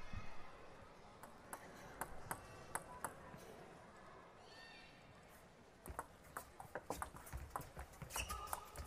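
Table tennis ball clicking: a few scattered single clicks, then a quick rally of the ball striking bats and table from about six seconds in.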